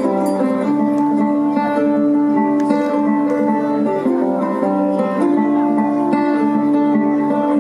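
Music played over the stage: plucked strings over long held notes, the chords changing every second or two.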